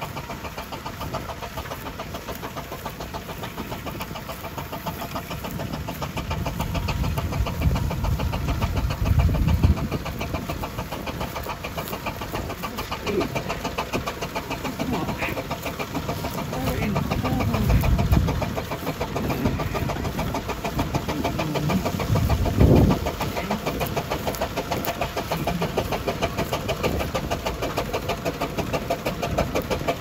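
Steam ploughing engine running steadily while it winds in the cable that draws a balance plough across the field. Low rumbles swell up three times: about a third of the way in, just past halfway, and about three quarters in.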